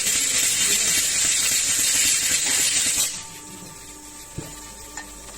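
Loud, steady machine hiss that cuts off suddenly about three seconds in, leaving a quieter factory hum with a couple of light clicks.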